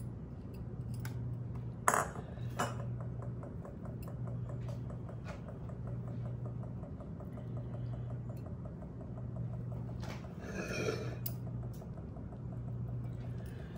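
A spatula spreading soft cheesecake filling in a glass trifle bowl, with a sharp click of the utensil against the glass about two seconds in, a smaller click just after, and a short stretch of scraping near the end.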